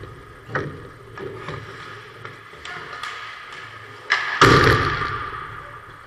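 Ice hockey play: sharp knocks of sticks and puck in the first second or so, then a loud double bang about four seconds in that rings out for over a second.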